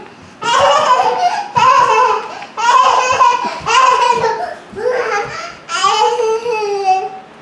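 A young child's high-pitched voice, babbling and laughing in a run of about six drawn-out sounds, each roughly a second long.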